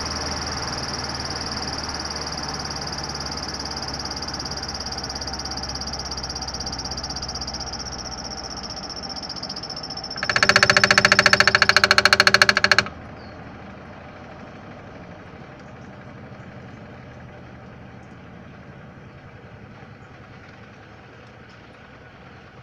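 Washing machine spin dryer running with a steady hum and a high whine. About ten seconds in, a loud buzzer sounds for about two and a half seconds. The whine then stops and the drum runs on more quietly, slowly winding down.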